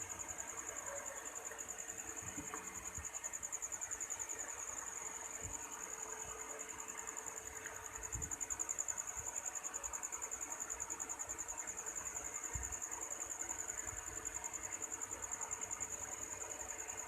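Crickets chirring: a steady, rapidly pulsing high trill, with a few faint low knocks.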